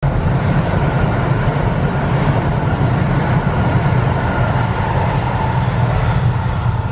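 Electric train running by at a station platform: a steady rolling rumble of wheels on rail.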